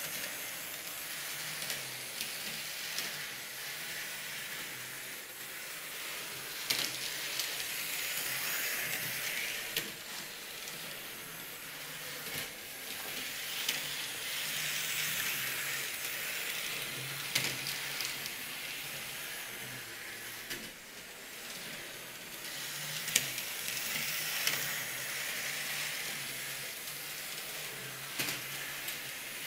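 HO-scale model train running on its track: a steady electric-motor whir and wheel rumble with a faint low hum, swelling and fading several times, with a few sharp clicks.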